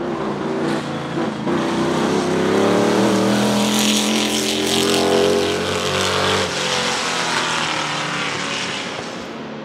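Lola T70 Mk3 coupé's Chevrolet V8 racing engine accelerating past at full throttle, its note climbing through the gears. It is loudest in the middle, drops away about six and a half seconds in, then fades into the distance.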